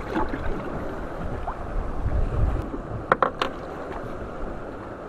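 Wind on the microphone and water lapping around a small boat, with a few sharp clicks about three seconds in.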